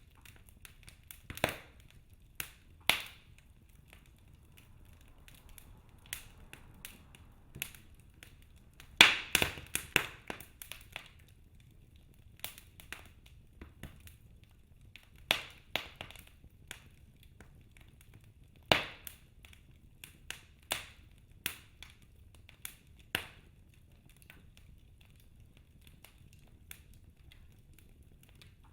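Wood fire crackling in a fireplace: irregular sharp pops and snaps, with a quick burst of them about nine seconds in.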